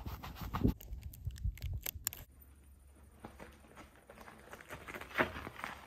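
Close handling of a unicycle tyre and a small metal patch: a quick run of clicks and rubs for about two seconds. Then a few faint crunches of a mountain unicycle's knobby tyre rolling over rock and gravel on a steep dirt trail.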